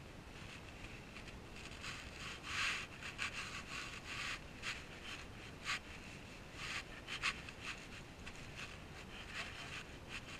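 Irregular rustling and scuffing from a person moving in the dark, with a few sharper scrapes in the middle stretch, over a steady hiss.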